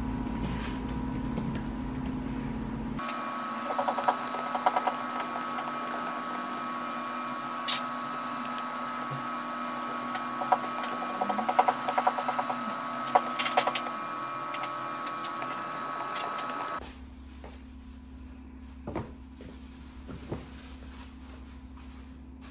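Computer keyboard typing in short bursts of quick clicks over a steady faint hum. Near the end the sound drops to a quieter background with a few isolated soft knocks.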